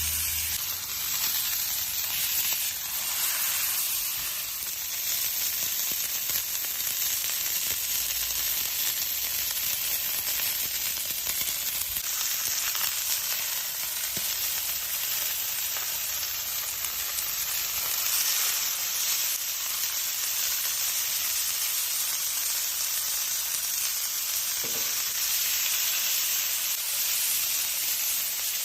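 Fat rendering in a hot pan: a steady sizzle with scattered small pops and crackles.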